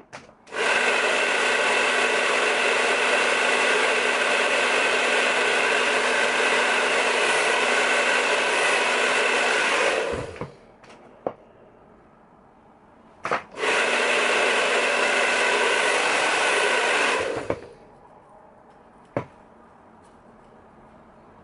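Hand-held hair dryer running with a steady whir, in two spells: about ten seconds, then, after a short pause, about four seconds more. It is likely drying freshly sprayed lace-wig glue along the hairline.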